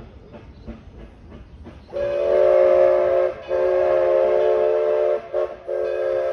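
Edison No.1 4-4-0 steam locomotive chuffing softly about three times a second. About two seconds in, its steam whistle sounds a chord of several notes: two long blasts, a short toot and a long blast. That is the long-long-short-long grade-crossing signal.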